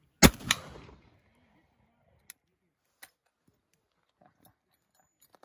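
An 1866-pattern Peabody rifle, converted to centerfire, fires a single black-powder .50-60 load: one sharp, very loud report, followed about a quarter second later by a second, quieter crack, with the sound dying away within a second. A few faint clicks follow.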